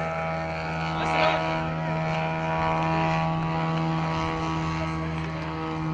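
Engine and propeller of a model Piper Cub RC plane running at a steady, unchanging pitch in flight while towing a long banner flag. A brief higher wavering sound comes about a second in.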